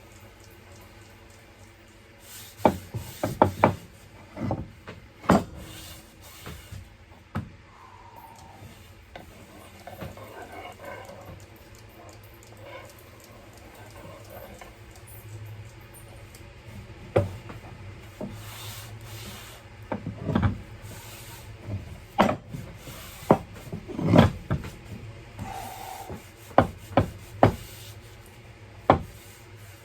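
Scattered sharp knocks and some rubbing, the sound of wood and tools being handled on a workbench, over a steady low hum.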